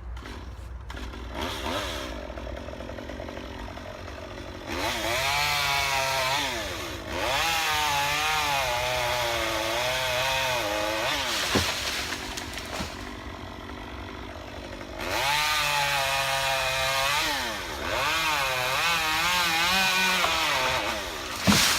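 Gas chainsaw idling, then run at full throttle in two long stretches of several seconds each, its pitch sagging and recovering as the chain bogs in the cut. A sharp crack comes about halfway through, and another just before the end.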